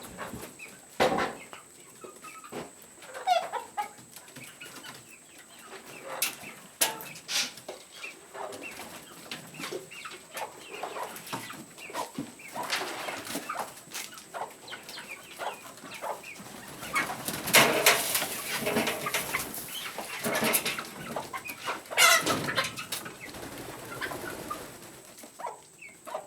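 Penned chickens and pheasants clucking and calling while being fed, with scattered sharp clicks and knocks. The birds are busiest and loudest about two-thirds of the way through.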